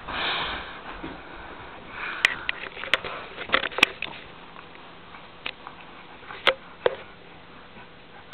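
A domestic cat sniffing cautiously: short soft sniffs and breaths, with a few sharp light clicks and taps scattered among them.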